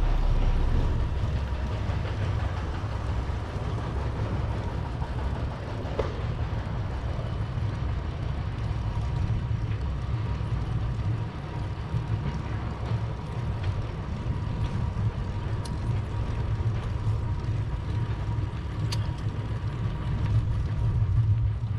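Steady low rumble of wind on the camera's microphone and bicycle tyres rolling on asphalt during a slow uphill ride.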